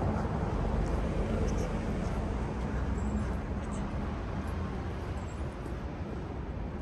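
City street traffic: a steady low rumble of passing vehicles, easing off a little in the second half.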